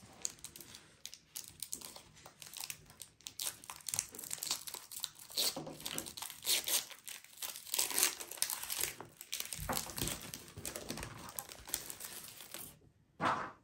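Foil wrapper of a Pokémon TCG Chilling Reign booster pack crinkling and tearing as it is opened by hand, in irregular crackles that are loudest about halfway through, with a short sharp burst near the end.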